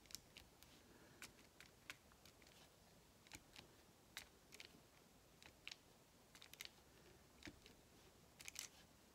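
Faint, irregular small clicks and taps of a diamond-painting drill pen picking round diamonds out of a plastic tray and pressing them onto the sticky canvas, about one or two a second, with a short quick cluster near the end.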